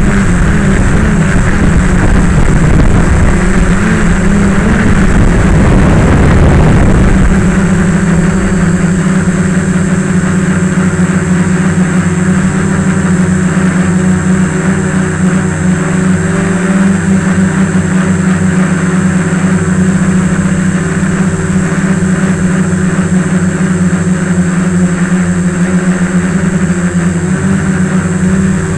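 RC aircraft's motor and propeller running, picked up by the onboard camera: a steady drone whose pitch wavers with the throttle for the first several seconds, over a heavy rumble of wind on the microphone, then holds an even pitch.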